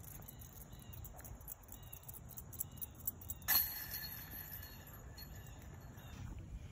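A disc golf disc strikes a metal basket about three and a half seconds in, and the chains and metal ring out with a jangling chime that fades over a couple of seconds. Insects tick steadily in the background.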